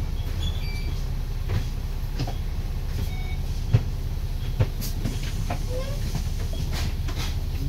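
Diesel bus engine idling, heard from inside the double-decker's upper deck: a steady low hum, with a few light rattles and knocks from the bodywork, the sharpest a little under four seconds in.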